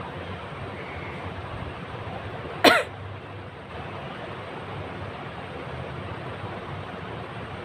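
One short, loud explosive burst from a person's nose and throat, a sneeze-like expulsion forced by tickling the nose, over a steady background hiss.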